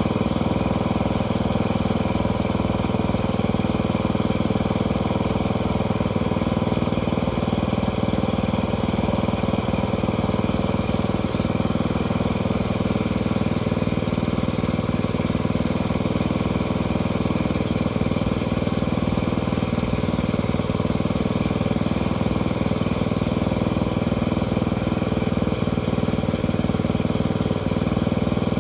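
Engine running steadily at one constant speed, its pitch unchanging throughout.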